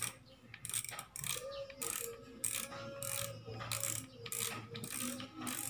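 Ratcheting reel seat locking nut on a Gtech Jig Legend 662S jigging rod being turned by hand, clicking like a reel's drag in a run of sharp ticks about two a second.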